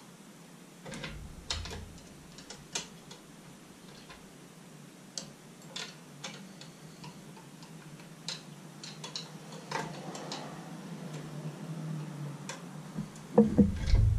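Scattered small clicks and taps from hand work on the wiring terminals and nuts of a Mercury Thunderbolt 500 outboard's ignition components, with a few louder knocks near the end.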